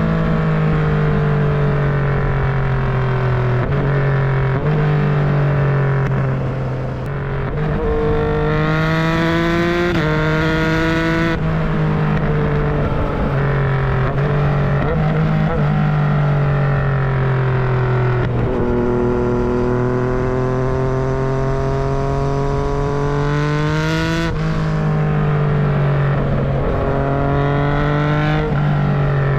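Yamaha MT-09's three-cylinder engine under way, its pitch sliding down as the rider rolls off and climbing again under throttle, with abrupt steps between gears. There is a strong pull about a third of the way in and another shortly before the end.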